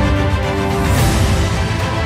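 Background music: held chords over a pulsing bass, with a cymbal-like swell that peaks about halfway through.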